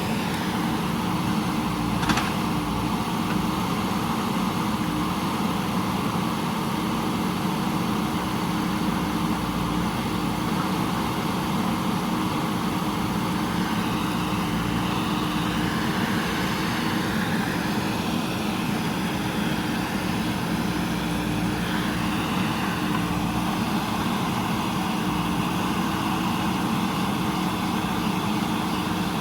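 JCB backhoe loader's diesel engine running steadily, with a single sharp knock about two seconds in.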